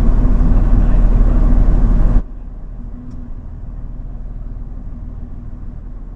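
A loud, steady mechanical running noise over a truck engine cuts off abruptly about two seconds in, leaving the engine idling quietly.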